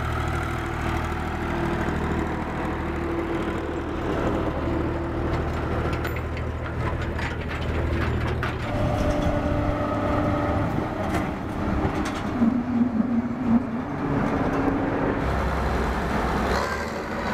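Ursus tractor's diesel engine running steadily as it pulls two loaded trailers past. Near the end this gives way to a Bizon combine harvester's engine running as it drives by.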